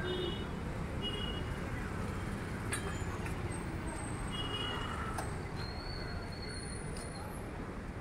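Busy city street traffic: a steady rumble of passing vehicles, with a few short, high-pitched horn beeps near the start and about halfway through.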